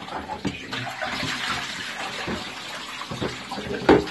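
Flood coolant splashing and running onto the CNC machine's bed in a steady hiss, with several knocks from the plastic tub being handled. The loudest knock comes near the end.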